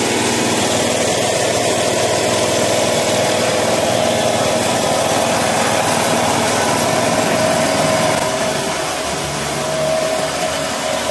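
Kawasaki VMTB70 flail mower's 7 hp four-stroke engine running steadily after a pull start, easing slightly in level about 8 seconds in.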